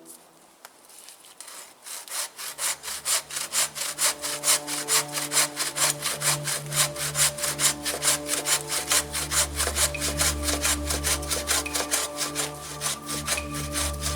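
Hand saw cutting through wood with fast, even back-and-forth strokes, about four a second, starting about two seconds in.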